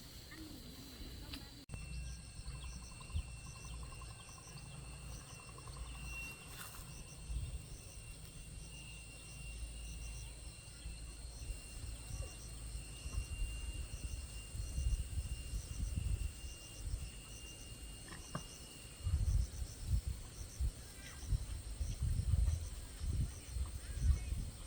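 Insects chirping in a steady, evenly repeating high pattern over a continuous high drone, with uneven low rumbling noise underneath that grows stronger in the second half.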